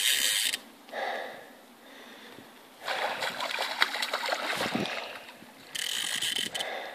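Fly reel's ratchet buzzing in short runs as a hooked salmon pulls line off, with the fish splashing at the surface in the middle.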